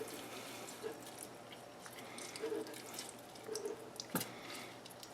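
Drained chickpeas being tipped into a blender jar: faint soft plops and drips, with a sharper knock about four seconds in.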